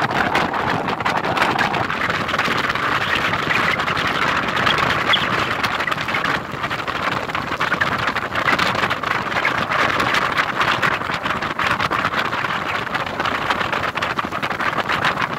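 Motorboat running steadily while under way, with wind buffeting the microphone.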